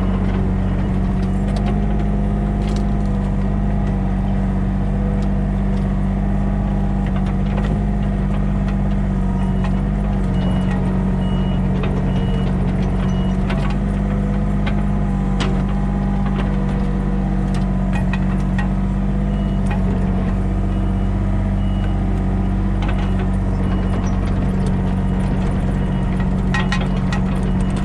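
A motor engine running steadily at an even speed, with two runs of short, high, evenly spaced beeps partway through.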